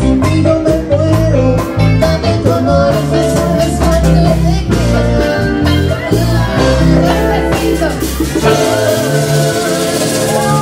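Bachata band playing live: guitar over bass and percussion, with singing. The bass drops away for the last couple of seconds.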